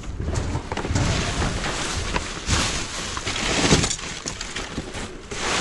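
Rustling and scraping as a bag is pulled out of a dumpster, with broken glass crunching and shifting among the debris. It gets louder about two and a half seconds in and again around four seconds.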